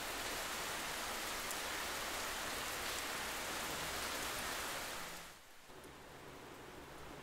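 Steady rain falling, an even hiss that swells in at the start and fades away about five seconds in.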